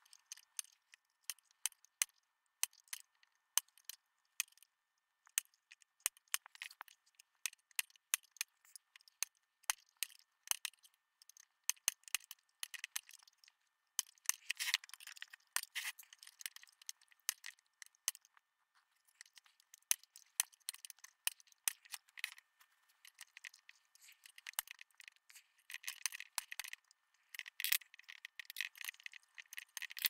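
Small metal clicks, taps and short scrapes of a hand tool working on an amplifier's metal parts and heatsink while a Darlington power pack is freed. There is an uneven run of sharp clicks, with denser stretches of scraping and rattling about halfway through and again near the end.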